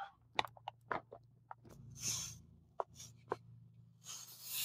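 Plastic bag of aquarium sand crinkling and crackling in the hands with a few light clicks, then near the end a steady hiss starts as the sand begins to pour through a plastic funnel into the loudspeaker cabinet.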